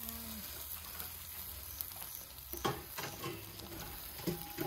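Meat sizzling on a wire grill rack over hot charcoal: a steady hiss with fine crackling, broken by two sharp clicks, about two and a half and four seconds in.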